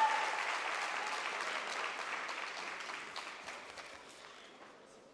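Audience applauding, dying away over about four seconds until the hall is nearly quiet.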